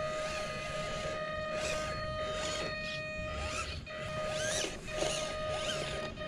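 Small electric motor and plastic gearbox of a 1/18 scale RC crawler whining at a steady pitch as it climbs a dirt slope. The whine drops out briefly twice a little past the middle.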